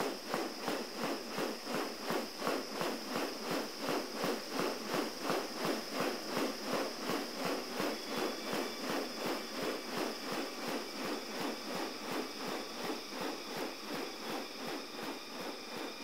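A male superb bird-of-paradise in courtship display, bouncing on a branch with a steady rhythm of short snapping beats, about three a second. A constant high insect drone sounds behind it.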